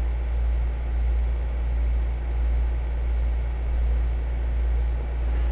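A steady, deep machine hum that swells and fades in a slow, regular pulse.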